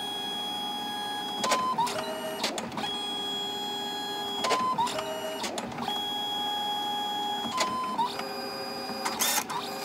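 Photo printer printing a photo: a steady mechanical whir with clicks and a short change in pitch repeating about every three seconds.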